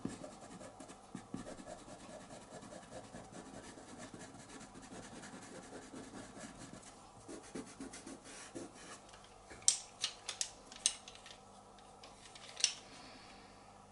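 Pastel pencil scratching and rubbing on pastel paper in many quick short strokes. Near the end come a few sharp clicks and taps.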